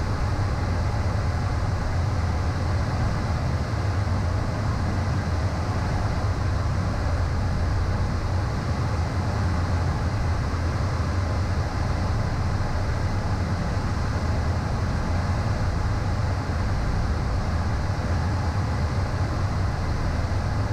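Steady cockpit noise of a Beechcraft Premier I business jet in flight: an even rushing drone with a strong low hum and no change in level.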